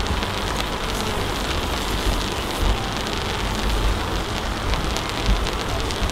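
Steady crackling hiss of a high-voltage overhead power line's corona discharge: the conductors sizzle, sounding as if the cables were frying, from ionisation of the air around them. An uneven low rumble runs underneath.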